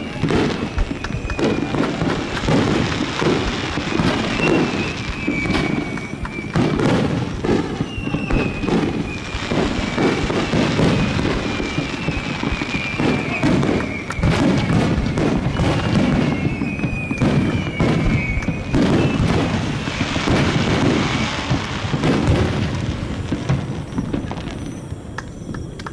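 Fireworks display barrage: rapid, overlapping booms and crackling bursts, with several long falling whistles over them. It thins out near the end.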